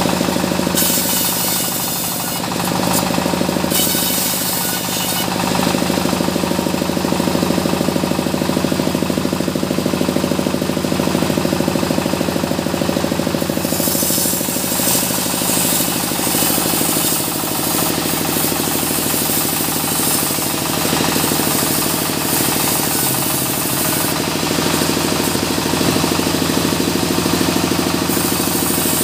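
Engine-driven circular sawmill bench running steadily, the blade ripping small mahogany logs and boards at intervals, which adds a high hiss over the engine drone.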